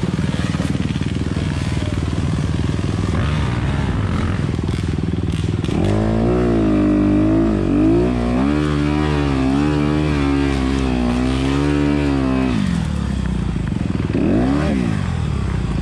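Honda CRF250RX dirt bike's 250 cc four-stroke single-cylinder engine running at low revs, then revved up and down repeatedly for about six seconds from about six seconds in, with one more short rev near the end.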